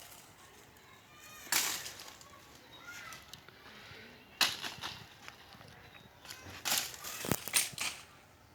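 Tree wood being chopped with a blade: about five sharp, heavy strikes at irregular intervals, the last three coming close together near the end.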